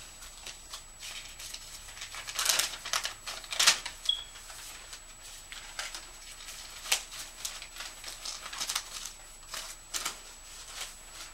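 Paper letters, envelopes and cards rustling and crackling as they are picked up, flipped through and dropped onto piles, in irregular rustles with the loudest ones about two and a half and three and a half seconds in.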